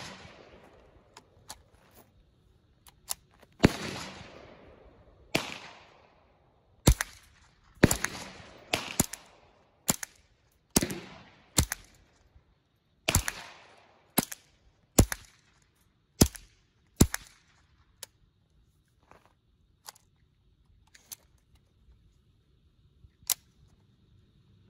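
Gunshots from a GSG AK-47-style .22 LR rifle firing .22 Short rounds, one at a time about a second apart, each a sharp crack and some trailing off in a long echo. Near the end the shots come further apart and sound fainter.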